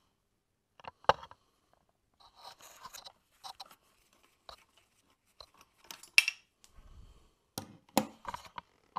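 Hand tools and metal engine parts being handled: scattered sharp clicks and clinks with brief scraping between, the loudest about a second in, around six seconds and near the end.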